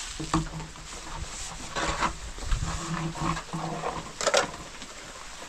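Low, drawn-out animal calls, twice, over a steady hiss of rain, with a couple of sharp knocks.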